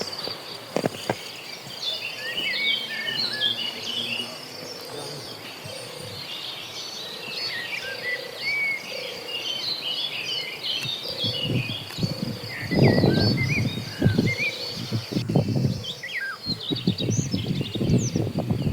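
Many small birds chirping and twittering, over a steady high insect buzz in the first half. From about twelve seconds in, loud irregular bursts of low rustling noise rise over the birds.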